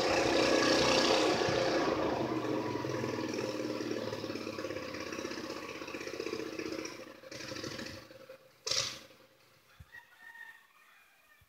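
Straight-piped Cub Cadet lawn tractor engine running, fading out over about eight seconds. A brief sharp noise comes just before nine seconds, then faint bird calls near the end.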